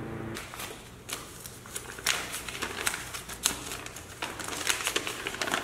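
Paper crackling and rustling in irregular clicks as a folded note is handled and opened. A low steady tone cuts off just after the start.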